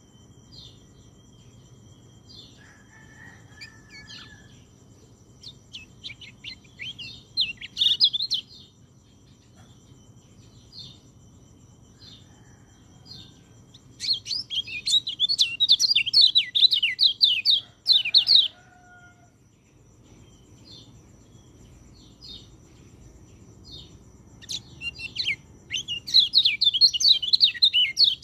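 White-eye (pleci) singing: bursts of rapid, high twittering chirps a few seconds long, with scattered single notes in the pauses between.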